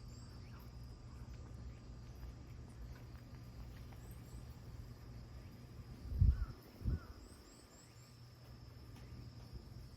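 Insects droning steadily at a high, even pitch in a garden, with a few faint chirps above it. About six seconds in come two dull low thumps, half a second apart.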